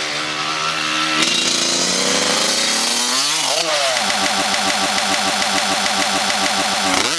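Small dirt bike engine revving. About three seconds in, the pitch dips and then climbs again, and after that the engine holds high revs while the rider keeps the bike up on its back wheel in a wheelie.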